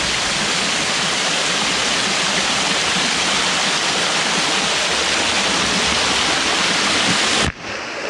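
Waterfall rushing water, a steady loud hiss that cuts off abruptly near the end.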